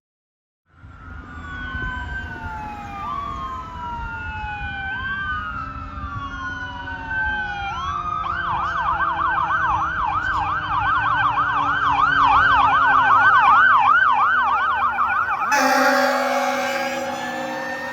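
Fire engine siren starting about a second in with a slow wail, rising and falling every couple of seconds, then switching to a fast yelp of about three sweeps a second. A couple of seconds before the end the air horn blasts over it, with a low rumble underneath.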